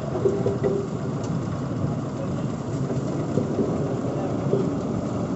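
Road roller's diesel engine running steadily, with faint voices in the background.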